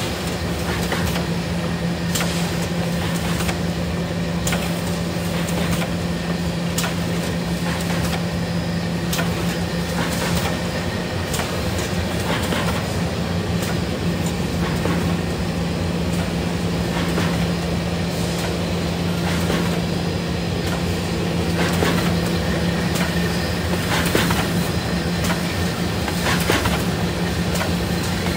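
Semi-automatic two-piece carton folder gluer running: a steady motor-and-belt drone with a strong low hum, and frequent irregular clicks and knocks as corrugated cardboard blanks feed through.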